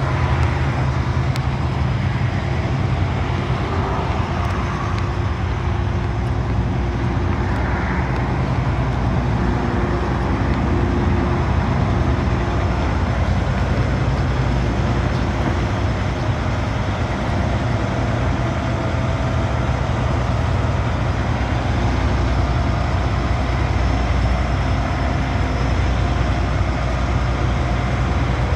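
John Deere 9870 STS combine's six-cylinder diesel engine running steadily at a constant speed.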